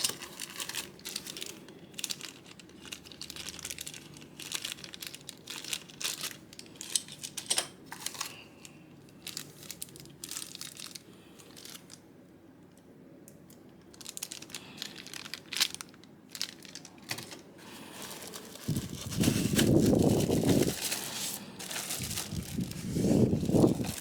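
Packaging crinkling and rustling as it is handled, with scattered clicks and rubbing. The rustling turns louder and fuller in two stretches near the end.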